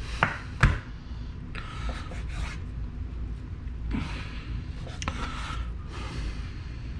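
Kitchen knife slicing raw beef into strips on a cutting board: two sharp taps of the blade on the board in the first second, then quieter sawing strokes through the meat.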